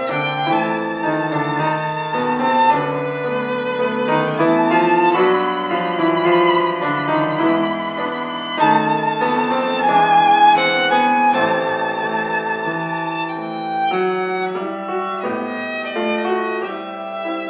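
A handmade violin playing a melody of sustained bowed notes with vibrato; this is the sound of the maker's newly finished first instrument.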